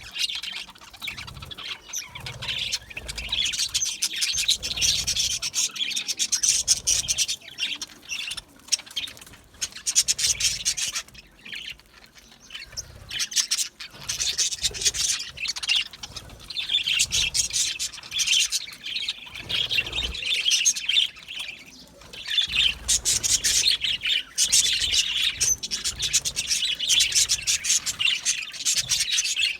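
A flock of budgerigars chirping and chattering, busy and near-continuous, thinning out briefly twice. Occasional low thuds sound underneath.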